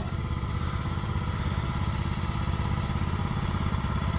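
Engine of the mover's vehicle running steadily at low revs as it slowly tows a building on wheels, with a regular low pulsing hum.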